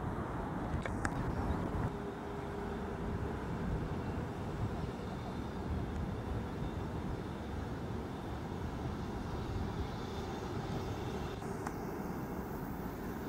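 Steady low rumble of passing vehicles.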